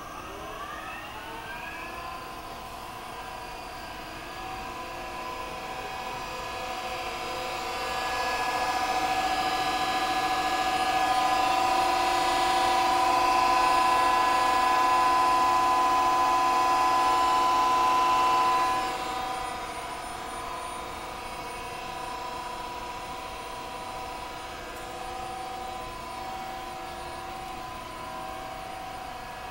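Reishauer RZ 301-AS CNC gear grinder running under power: a steady whine of several tones that climbs in pitch over the first couple of seconds as it spins up, then holds. It grows louder for about ten seconds in the middle and drops back near the end.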